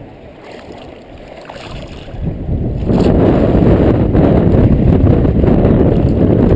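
Muffled rush and slosh of river water against a camera held at the surface while wading a shallow river, quiet at first, then building and loud and continuous from about three seconds in.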